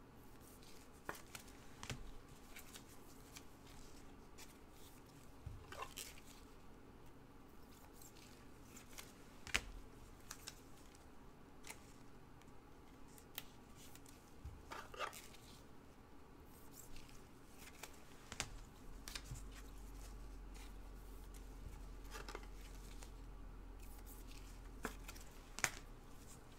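2019-20 Panini Revolution basketball trading cards being flipped and slid through gloved hands: scattered light clicks and snaps of card edges against each other. A faint low hum comes in about two-thirds of the way through.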